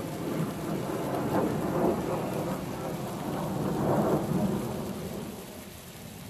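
Beer being poured from a 24-ounce tall-boy can into a tumbler, a continuous splashing and fizzing stream that grows quieter near the end.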